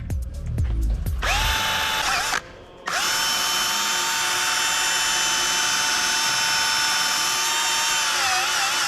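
Power tool motor spinning with a steady whine, stopping briefly about two seconds in, then running again for about six seconds, its pitch wobbling slightly near the end.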